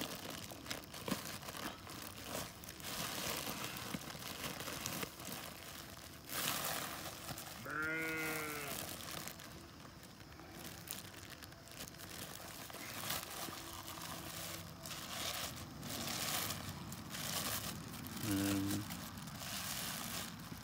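Plastic garbage bag crinkling and crackling as the raked grass packed inside is pressed and squeezed to force the air out. Two short calls cut through, one about eight seconds in and a shorter one near the end.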